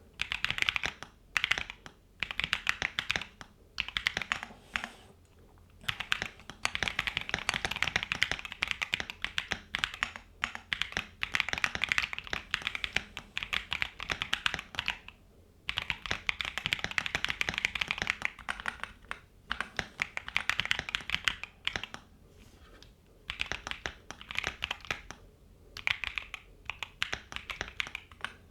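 Typing on a Keychron Q2 Max mechanical keyboard with Gateron Jupiter Banana tactile switches: fast runs of key clacks, broken by short pauses every few seconds.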